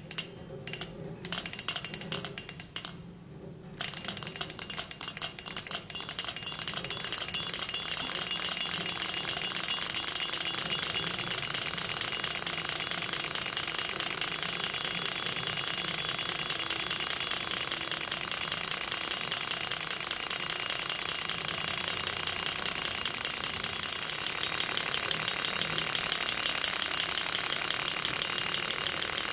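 Gatling six-cylinder Stirling engine, a model hot-air engine, spun by hand and running on its own: a few separate clicks at first, then a fast, even clatter from its displacers snapping back and forth as the cylinder cluster picks up speed, stepping up in level near the end. It is running again now that its fouled hot end has been cleaned and rebuilt.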